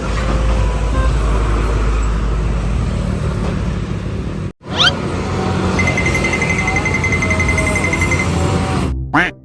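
Large vehicle engine running amid traffic noise, cut off abruptly about halfway. A quick rising sweep follows, then a steady high-pitched tone lasting about two seconds over the engine noise.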